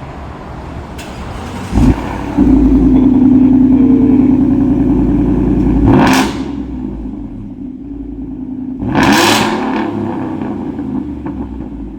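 2021 Ford F-150's 5.0 V8 through a Borla cat-back exhaust. It comes to life with a sudden loud burst about two seconds in and holds a loud, steady high idle. It is then revved twice in quick blips, about three seconds apart.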